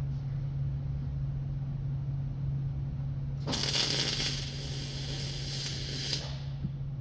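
MIG welding arc on aluminum crackling for nearly three seconds, starting about halfway in and cutting off sharply, over a steady low hum.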